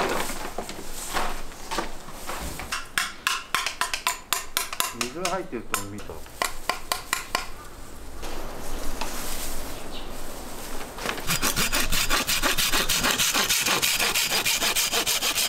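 Folding hand saw cutting through a green bamboo stalk: quick back-and-forth strokes, in uneven spurts through the first half, then a steady fast run of strokes from about eleven seconds in.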